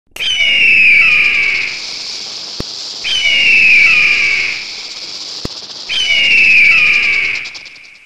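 A bird of prey screaming three times, about three seconds apart: each call is a harsh, high scream that slides down in pitch over about a second and a half.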